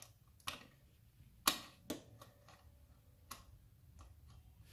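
A few sharp small metal clicks from a hurricane oil lantern's wick-adjuster knob being turned to lower the flame, the loudest about a second and a half in.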